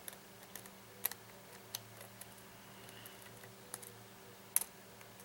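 Sparse light clicks of a lock pick working the pins of a Yale lock cylinder held under tension, a few single clicks seconds apart over a faint steady hum.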